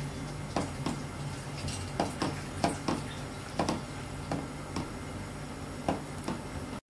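A plastic ladle stirring thick soup in a metal pot, knocking against the pan's sides and bottom in irregular clicks with wet sloshing, as the soup is stirred continuously while beaten egg whites go in. A low steady hum runs underneath, and the sound cuts out briefly near the end.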